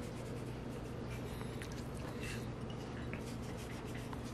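Quiet steady low hum with faint, scattered small clicks and rustles from fingers sprinkling and rubbing dry seasoning onto raw chicken thighs on a plate.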